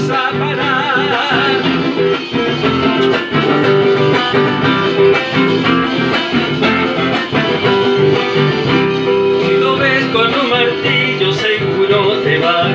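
Live acoustic guitar playing a lively song accompaniment with a steady rhythm.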